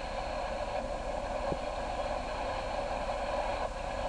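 Steady rushing roar of a large gas fire, the ruptured high-pressure gas main burning, heard thinly through a television news broadcast.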